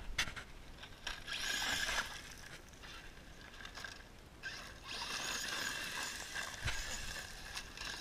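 Radio-controlled off-road car driving on loose gravel, its tires crunching and spraying gravel in two spells, about a second in and again from about four and a half seconds in.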